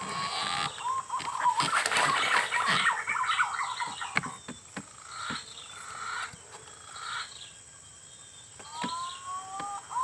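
Wild birds calling in the treetops: slurred rising whistles at the start and again about nine seconds in, among many quick chirps, thinning out in the middle. A few sharp clicks and a thin, steady high tone run underneath.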